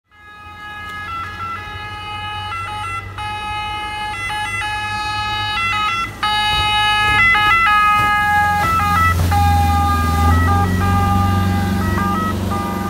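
Boat ambulance's two-tone siren, switching back and forth between a high and a low note. A low engine rumble from the boat grows louder about two-thirds of the way in.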